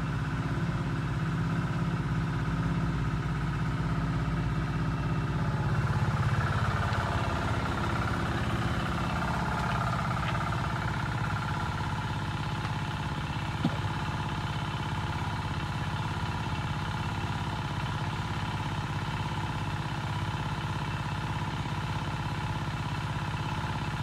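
A small engine running steadily at an even idle, a continuous droning hum, with one sharp click a little past the middle.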